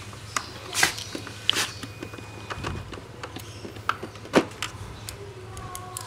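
Scattered plastic clicks and knocks as a screwdriver and hands work around a washing machine's plastic control-panel housing and PCB box, two of them louder, about a second in and after four seconds. A steady low hum runs underneath.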